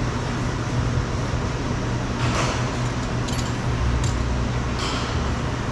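Steady low mechanical hum, like a running motor or fan, with a few faint light clicks in the second half.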